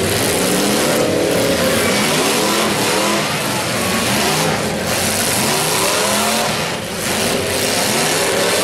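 Several demolition derby cars' engines revving hard at once, their pitch repeatedly rising and falling as they accelerate into hits and back off, over a constant loud rumble.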